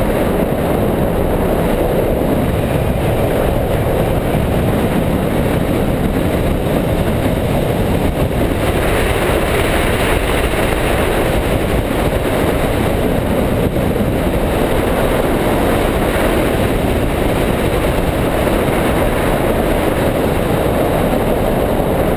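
Wind rushing over the hang glider's wing-mounted camera in flight, a loud, steady rumble. Somewhat over a third of the way in, a brighter hiss of airflow joins it.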